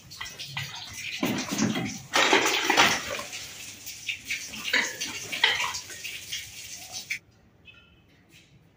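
Plastic shopping bags rustling and crinkling as they are carried and set down on a woven cot, loudest around the middle, stopping abruptly about seven seconds in.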